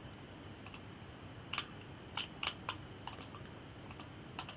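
Computer keyboard keys and a mouse button being clicked, about seven separate short clicks scattered through a few seconds of quiet room tone.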